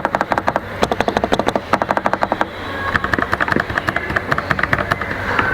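Fast typing on a Fantech MAXFIT81 MK-910 mechanical keyboard with PBT keycaps: a quick run of key clicks, a short pause about halfway through, then more rapid keystrokes.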